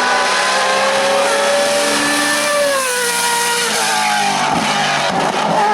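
Hill climb race car's engine running hard at high revs, its pitch falling about halfway through and then held lower.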